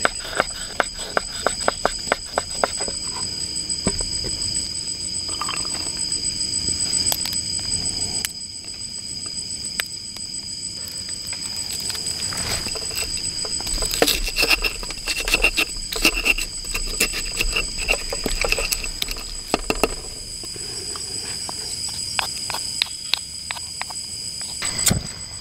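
Knife chopping sausage on a wooden cutting board in rapid taps. After a short pause, a stone pestle knocks and grinds chillies, shallots and garlic in a stone mortar. A steady high-pitched whine sits under both.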